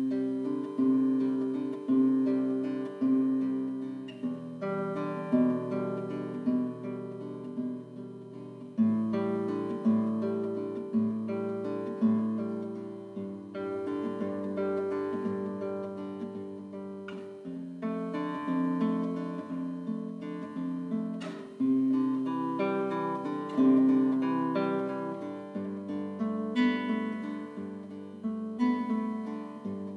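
Classical guitar played solo, a steady run of plucked chords and notes ringing into one another, forming the instrumental introduction of the song before any singing.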